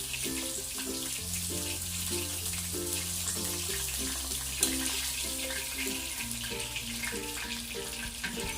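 Background music with a stepping bass line, over a steady crackling sizzle of food frying in hot oil, with one sharp click about halfway through.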